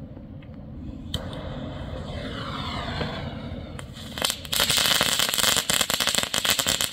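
A small ground firework crackles: its fuse hisses for a few seconds, then about four seconds in it breaks into a loud, dense run of rapid crackling pops.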